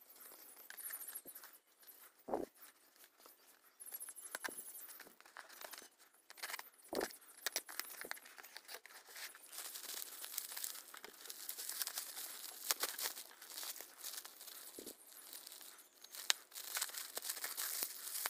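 Packaging being handled and opened by hand: irregular crinkling and tearing with scattered small clicks and an occasional knock.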